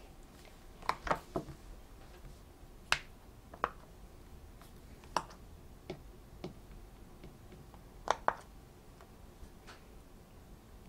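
Silicone bubbles of a small Go Pop! push-pop fidget toy being pressed in one at a time: about ten short, sharp pops at irregular intervals, a few in quick pairs.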